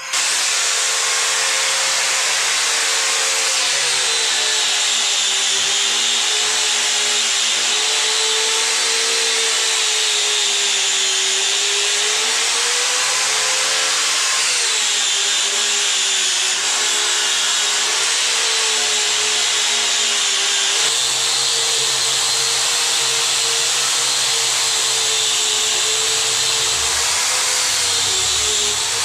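Angle grinder running with its disc against stainless steel railing pipe: a continuous loud grinding whine that wavers slightly in pitch.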